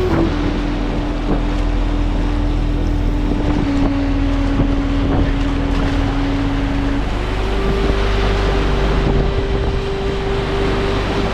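Whitewater rapids rushing, with wind buffeting the microphone. A steady hum runs underneath and steps up a little in pitch about seven seconds in.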